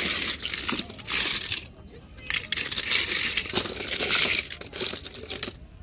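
A pile of die-cast and plastic toy cars clattering and scraping against one another as a hand rummages through them, in bursts with a short lull about two seconds in.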